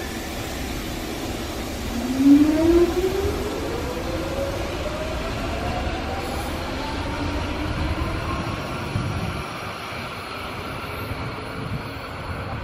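Hanshin 5000 series 'Jet Car' electric train pulling away from the platform. Its motors whine, rising steadily in pitch as it accelerates, over the rumble of the wheels, then fade as it moves off.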